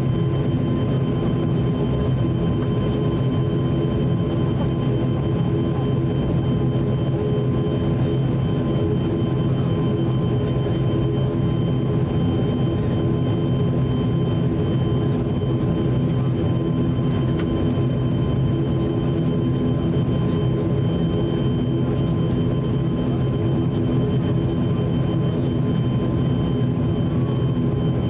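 Cabin sound of an ATR 42-600 taxiing: its two Pratt & Whitney PW127 turboprops running steadily at taxi power, a low propeller drone with a thin steady whine on top, heard from inside the cabin.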